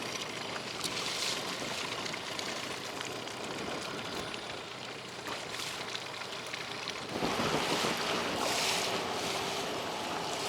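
Wind blowing on the microphone and water noise around a small boat on the water, with the hiss swelling several times; the noise grows louder about seven seconds in.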